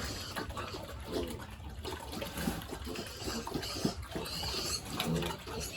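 Pigs grunting now and then over a steady rush of running water.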